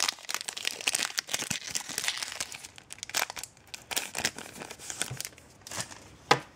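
Foil wrapper of a Pokémon EX Unseen Forces booster pack being torn open and crinkled by hand, then the cards pulled out. Dense crackling that thins out over the last couple of seconds, with one sharp click near the end.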